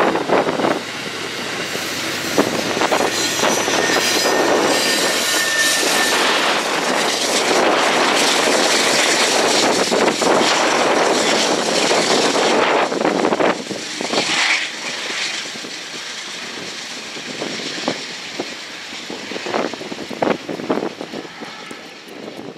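An Amtrak passenger train running past: a steady rush and rattle of wheels on rail, with a brief high squeal about five seconds in. The noise drops off after about thirteen seconds as the rear locomotive goes by, then fades as the train moves away.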